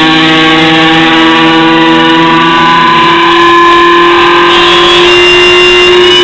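Guitar sounding a loud, unbroken drone of held notes with many overtones; a lower note drops out about three seconds in while the main note holds steady.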